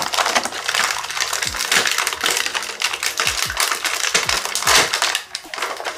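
Dense crinkling and clicking of plastic being handled, with a few short sliding sounds in the middle.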